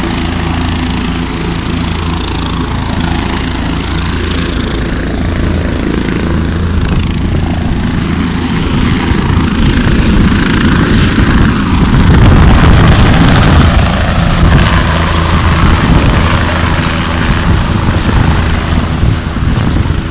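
Bell 407 helicopter lifting off and departing: steady rotor beat and turbine sound that grows louder about halfway through as it rises, then eases a little as it flies away.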